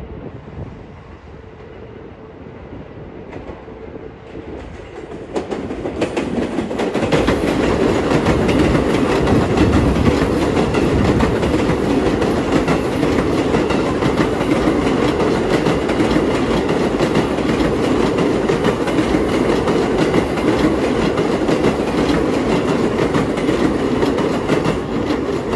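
An electric train passing close by, quieter at first, then loud from about six seconds in as it comes alongside, easing off near the end.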